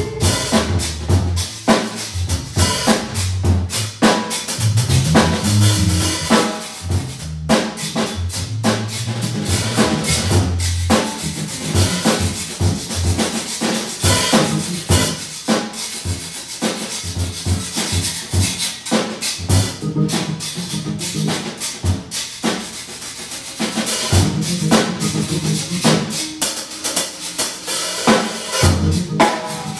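Live blues organ trio playing: Hammond organ carrying a stepping low bass line, electric guitar, and a drum kit keeping a steady beat with frequent snare and bass-drum hits.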